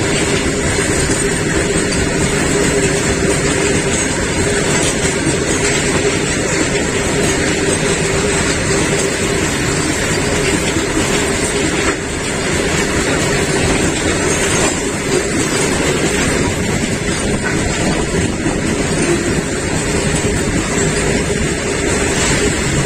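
Train running on the rails: a loud, steady rumble and rattle that holds without a break.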